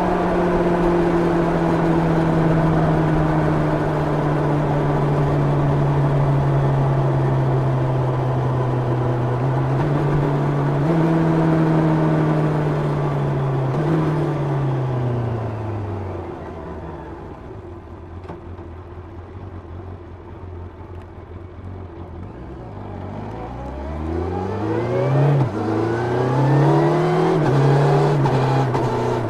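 1990 Yamaha FZR 600's inline-four engine on its stock exhaust, heard onboard with wind rush. It runs steadily at speed and steps up in pitch twice about ten seconds in. Then it winds down and runs lower and quieter for several seconds. From about twenty-three seconds in it revs up hard, dropping in pitch at a gear change, and pulls up again.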